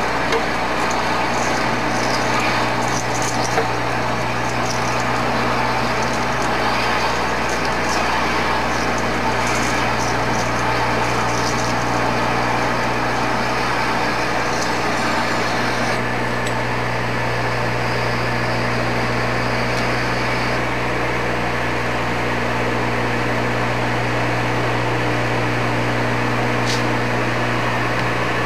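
Engine lathe running under power while a parting tool is fed into spinning metal round stock: a steady motor hum and machine noise, with a higher cutting noise that eases a little about halfway through.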